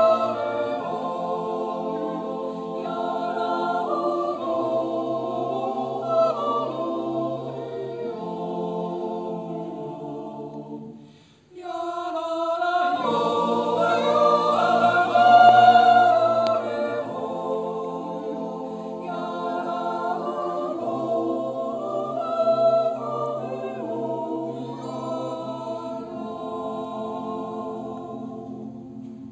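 Mixed Swiss yodel choir singing a Jodellied a cappella in close harmony. The singing breaks off briefly about eleven seconds in, then resumes, and the closing chord is held and fades near the end.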